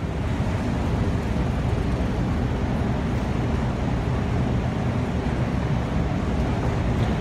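Metro station escalator running as it carries the rider down: a steady low rumble with a fainter hiss above it.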